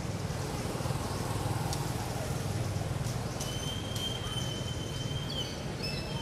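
Outdoor ambience: a steady low rumble, with a long, level high whistle starting about halfway through and holding for about two seconds, then a short repeat of it near the end.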